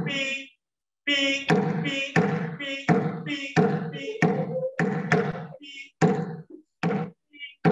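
Small hand drum struck by hand in an uneven rhythm, about a dozen hits, each with a brief ring.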